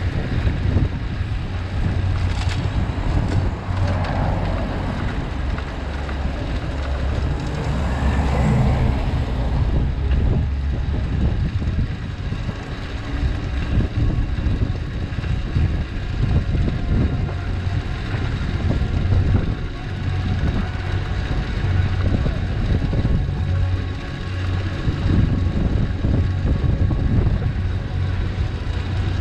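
Wind rushing over the microphone of a bike-mounted camera as a cargo bike rides along a city street, with steady traffic and tyre noise underneath.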